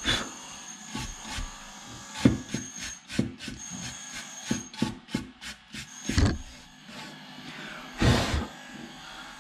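A soft brush scrubbing across the metal mesh face of an Ideal Logic gas boiler's downward-firing burner: irregular short brushing strokes and light knocks, with one longer stroke about eight seconds in.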